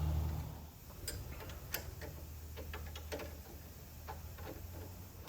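A string of light, irregular metallic clicks from hand tools worked on metal, over a steady low hum.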